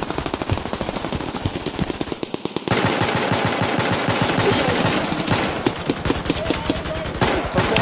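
Sustained automatic gunfire: rapid strings of shots in quick succession that get louder and denser about two and a half seconds in.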